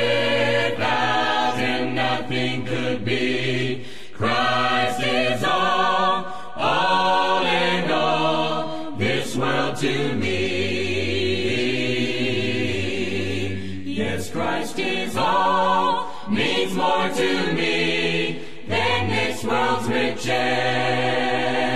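Recorded gospel choir singing a slow hymn, voices holding long notes with vibrato over a steady low accompaniment.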